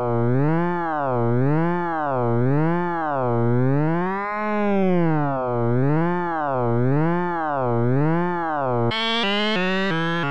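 Buzzy synthesized tone from the Rotatosound app's polygon vertex rotation synthesis, its waveform driven by the rotating 3D object's vertices. Its pitch swoops up and down about every two-thirds of a second, because the base frequency follows the position of one vertex. Near the end it changes to a new tone whose pitch jumps up in quick small steps.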